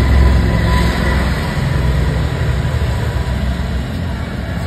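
Handheld butane gas torch burning steadily as its flame heats the top of a motorcycle rear monoshock, a steady low rushing noise.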